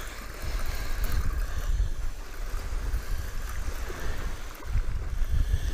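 Gusting wind buffeting the microphone, with waves splashing on the shore and the faint whir of a spinning reel being cranked as a hooked catfish is reeled in.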